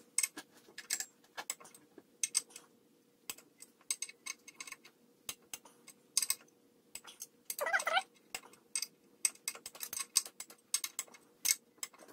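Torque wrench ratcheting in short runs of clicks while clutch pressure plate bolts are tightened to 20 ft-lb in a cross pattern, with metallic clinks of the socket being fitted from bolt to bolt. A longer, rougher rattle comes about two-thirds of the way in.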